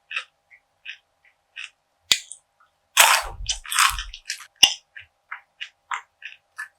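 Close-miked crunchy chewing of perilla seed gangjeong, a brittle bar of perilla seeds bound with syrup, in a steady run of short crunches. There are sharp cracks about two seconds in and again near five seconds, and a loud, dense burst of crunching around three to four seconds in.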